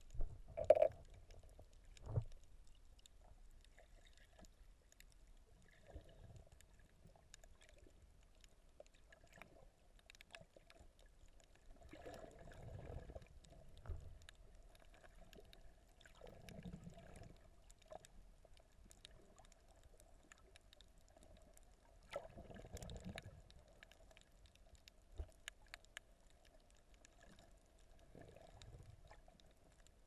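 Muffled underwater sound picked up by a submerged camera: faint low gurgling and sloshing that swells and fades every few seconds over a faint steady hum, with two sharp knocks near the start.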